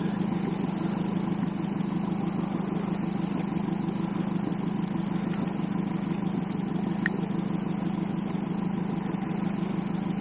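A boat's engine running steadily at low speed, a constant low hum.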